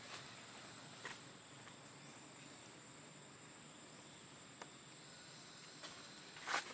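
A steady high-pitched insect drone, like crickets, over faint outdoor hiss, with a few light clicks and rustles and a louder crackly rustle near the end.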